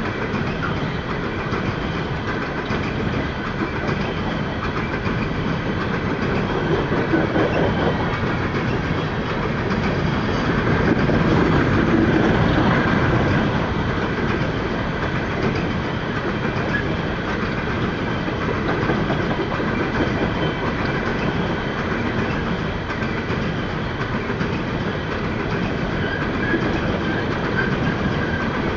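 Empty steel coal hopper cars of a freight train rolling steadily past, their wheels running over the rails.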